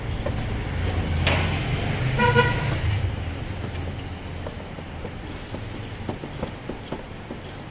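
A passing motor vehicle's low rumble with a short horn-like toot about two seconds in, just after a sharp knock; light clicks follow.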